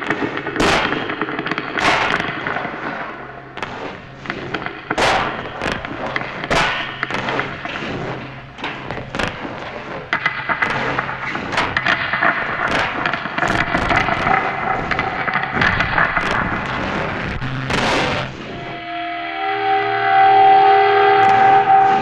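Experimental noise music: a dense, noisy texture hit by irregular sharp cracks and crashes. Near the end, steady held tones come in over it.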